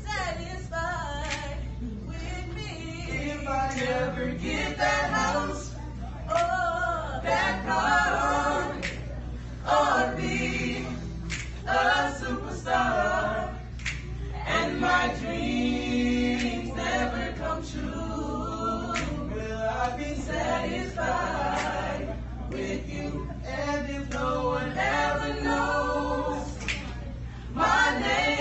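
A small mixed group of voices singing a gospel song a cappella in harmony, with no instruments.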